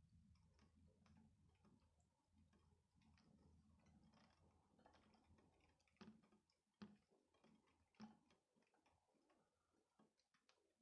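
Near silence: faint, irregular ticks with a few sharper clicks in the second half, over a low hum that fades out in the first half.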